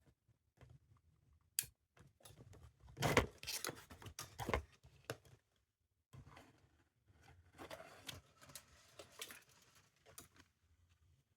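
Hands handling cables and audio equipment: scattered clicks and knocks with rustling, busiest from about three to four and a half seconds in and again from about six to ten seconds in.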